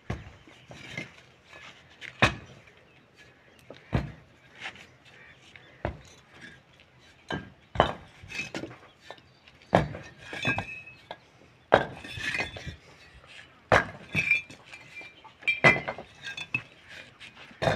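Fired clay bricks and broken brick pieces knocking together with sharp clinks and clacks as they are picked up and thrown onto a pile, the loudest strikes about every two seconds.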